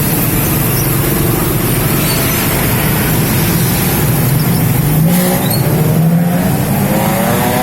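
Road traffic noise: a motor vehicle engine runs steadily. From about five seconds in, a second engine rises in pitch as it accelerates.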